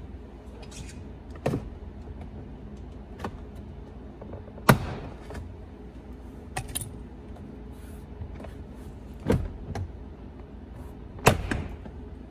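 Plastic retaining clips of a pickup's interior door trim panel popping loose one after another as the panel is pried off. There are several sharp pops a second or two apart, the loudest about halfway through and near the end, over a steady low hum.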